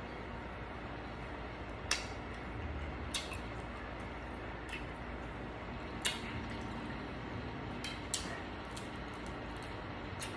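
Eating sounds from a seafood boil: a few sharp clicks and wet squishes of food being handled and eaten, spaced several seconds apart, over a steady background hiss.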